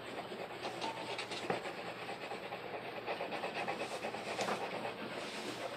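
Wax crayon scratching on paper as it is stroked back and forth in quick, short strokes: a soft, steady scratching that swells and fades with each stroke.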